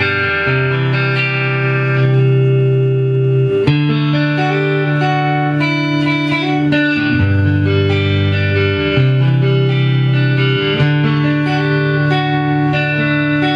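Fender Mexican-made Stratocaster electric guitar played through an amplifier with a clean tone, ringing chords that change every second or two.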